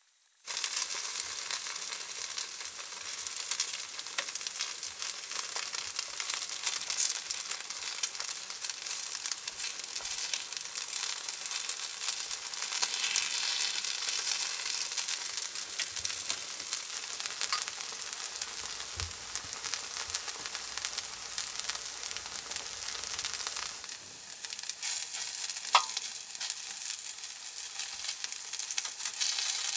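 Takoyaki batter sizzling and frying in an electric takoyaki plate, cutting in abruptly just after the start. Many light clicks and scrapes come from wooden skewers against the pan as the balls are turned.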